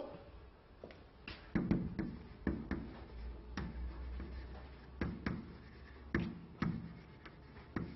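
Faint light taps and knocks, about a dozen at uneven intervals, over quiet room tone.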